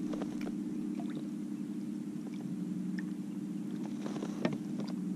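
A steady low hum, with small clicks and light water splashes as a redfish held in a lip grip is dipped in the water beside a kayak; one sharper knock about four and a half seconds in.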